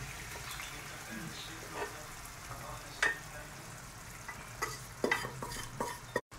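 Cooked meat being tipped from an aluminium pot into a pan of pumpkin and scraped out with a wooden spatula: several short scrapes and knocks over a faint, steady sizzle of frying.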